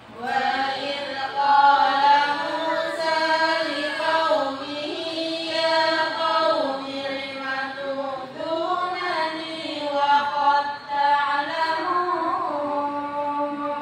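A group of women's voices chanting in unison through a microphone and loudspeakers, with long held, ornamented notes in the melodic style of Qur'an recitation.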